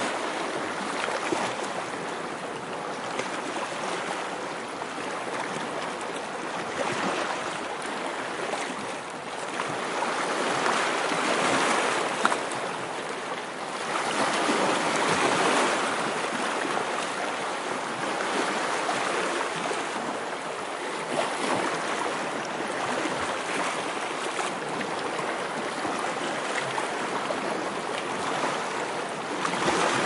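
Sea waves crashing and washing in, a continuous rushing hiss that swells and ebbs as waves come in, loudest about ten to sixteen seconds in.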